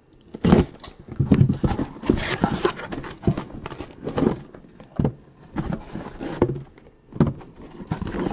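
Cardboard trading-card hobby boxes being pulled from a case and set down on a table: a run of irregular hollow knocks with cardboard rubbing and handling noise between them.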